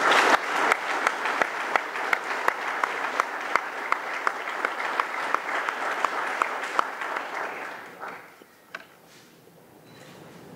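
Audience applauding: a dense patter of hand claps that dies away about eight seconds in, leaving a few scattered claps.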